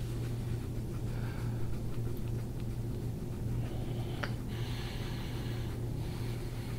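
Steady low hum, with soft breathing and a single sharp click about four seconds in.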